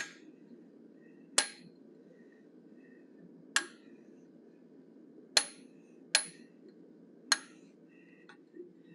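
Hammer blows on a round bob punch driven into a small steel bear head to open up its eye sockets: six sharp, ringing metal-on-metal strikes a second or two apart.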